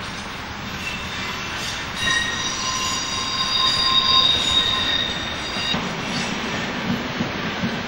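Dutch NS electric passenger train rolling through station pointwork, its wheels squealing on the rails. Several high steady squeal tones set in about a second in, are loudest around the middle and stop a little after two-thirds through, over the train's running rumble.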